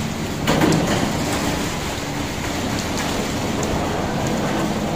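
Steady rushing noise of a pre-monsoon storm, wind and rain, with a louder gust about half a second in.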